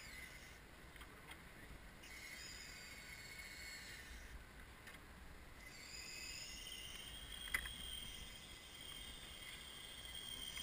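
Faint high-pitched whine of an aerial work platform's hydraulic drive as the basket is moved, wavering slowly in pitch and fading in and out. A single sharp click about seven and a half seconds in.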